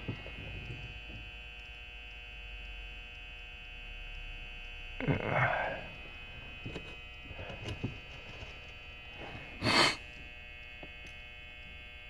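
Steady electrical hum made of several faint steady tones. Over it come a few small clicks from handling a lock cylinder's plug, pins and key, and two short breathy noises, the louder one near the end.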